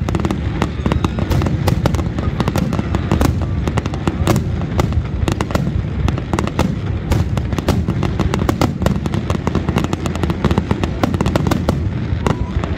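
Aerial fireworks shells bursting in a continuous barrage: many sharp bangs in quick succession over a constant low rumble.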